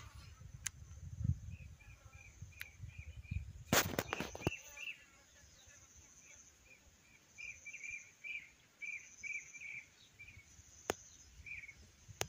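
Small birds chirping in short repeated calls, busiest in the second half, over a faint high steady buzz. Low wind rumble on the microphone dies away about four and a half seconds in. A loud cluster of clicks or knocks comes near four seconds, and a single click comes near the end.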